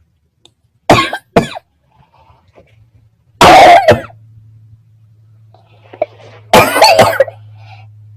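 A person coughing in separate bouts: two quick coughs about a second in, one longer, loud cough a little before the middle, and another cluster of coughs near the end.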